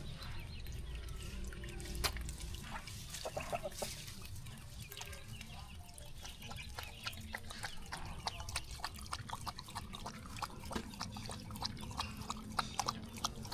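Geese dabbling in a shallow muddy puddle: many small wet clicks, slurps and drips, with a few faint short bird calls.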